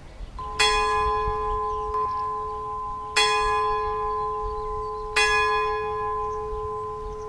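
Clock-tower bell striking three times, about two and a half seconds apart, each stroke ringing on under the next.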